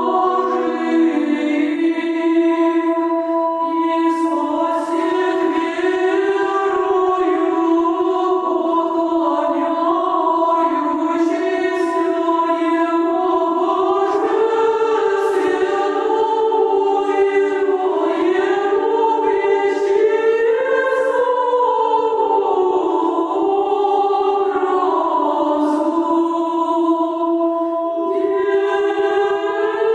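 Women's choir of monastery sisters singing a Russian Orthodox spiritual song in several-part harmony, with long held notes.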